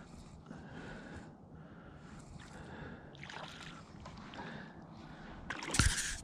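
A hooked fish splashing at the water's surface as it is reeled to the bank, loudest near the end, over the angler's heavy breathing close to the microphone.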